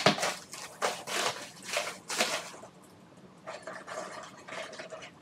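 Plastic cling wrap crinkling and rustling as it is pulled and peeled off by hand, in a run of irregular crackles that go quieter for a moment about three seconds in.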